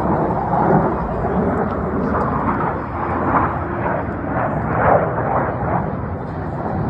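Jet engine roar from Blue Angels F/A-18 Super Hornets flying over, a loud, steady rumble.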